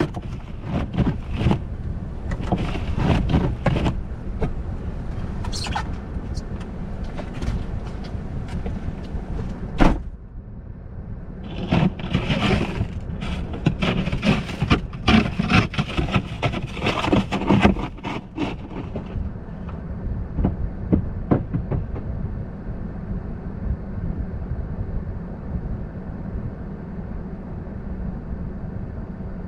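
Car driving on an icy, snowy road: steady low road rumble with irregular crackling and crunching, which thins out after about two-thirds of the way through.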